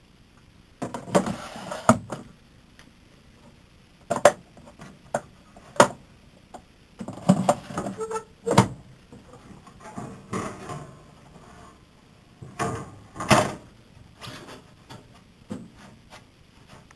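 Irregular knocks, clicks and clatter in several short clusters, as of things being handled, with quiet gaps between them.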